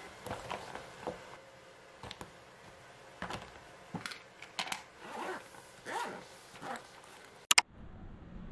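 Plastic Lock&Lock lunch box containers and a cutlery case being handled and packed into a fabric insulated lunch bag: a run of light, irregular knocks, clicks and rustles. Near the end comes a single sharp double click, the loudest sound.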